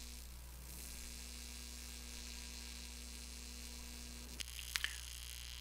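AC TIG welding arc on aluminum from a simple non-inverter welder, a faint steady hum. The hum stops about four seconds in, and a few light clicks follow.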